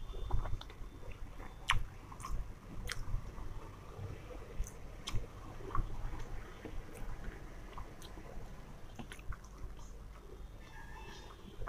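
A person chewing a mouthful of veg fried rice eaten by hand, with many short, scattered wet mouth clicks.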